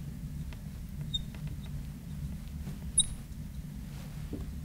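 Marker writing on a lightboard: faint scratches and ticks, with two short high squeaks about a second and about three seconds in, over a steady low hum.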